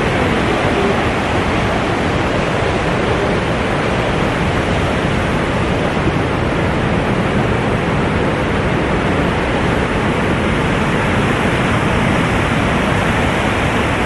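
A waterfall's water rushing, a loud, steady, unbroken noise.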